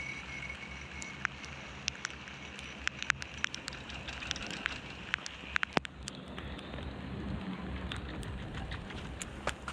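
Wind rumbling on the microphone, with irregular sharp clicks and crackles scattered throughout.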